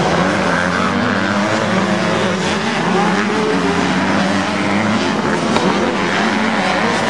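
85cc two-stroke motocross bikes racing, their engines revving up and down as they ride through the turns, with several engine pitches overlapping.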